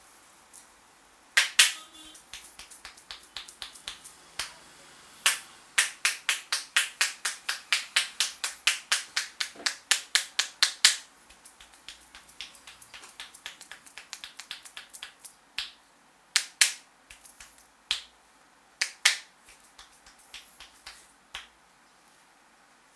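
Sharp snapping clicks from a barber's hands during a percussive Indian head massage. Two loud snaps, then a fast even run of about five a second lasting about five seconds, then softer scattered taps with a few more loud snaps in pairs.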